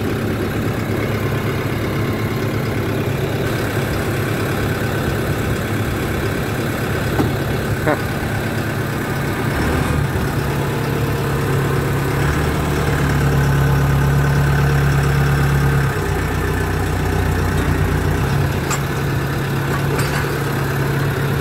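Case IH JX55 tractor's four-cylinder diesel engine running steadily at low revs. Its note grows louder for a few seconds in the middle, then settles back.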